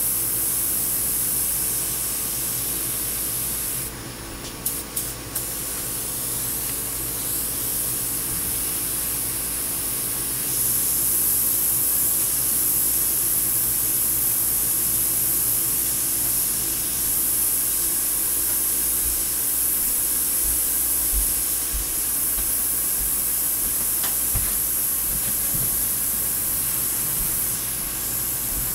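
Harbor Freight double-action, suction-feed airbrush spraying paint: a steady hiss of air and atomised paint. About four seconds in, the hiss drops back to a few short puffs, then comes back louder from about ten seconds on, over a steady low hum.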